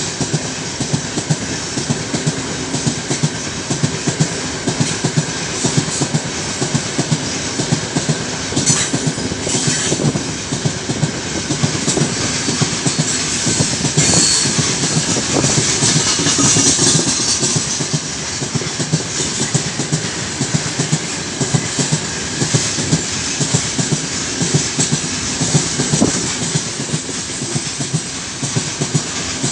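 Heavy freight train of open gondola wagons rolling past at speed: a steady clatter of wheels over rail joints, with a brief higher-pitched squeal of the wheels near the middle.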